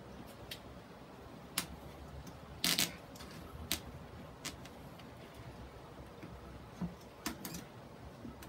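Hands working fishing line over sphagnum moss and hooking it onto a plastic grid mounting board: a handful of sharp, irregular clicks of line and plastic, with light rustling of moss between them.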